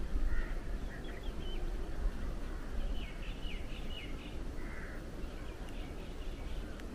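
Outdoor birdsong: a few short, sharp chirps about a second in and a quick run of falling notes about three seconds in, over a steady low rumble.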